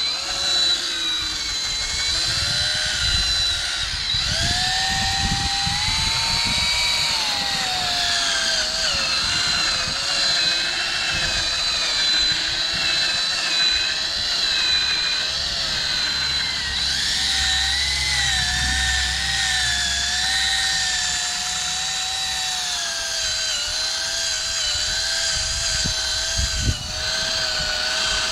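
Power drill spinning a 2000-grit sanding pad against a plastic headlight lens during wet sanding. The motor whine rises and falls in pitch as pressure on the lens changes, with a brief knock near the end.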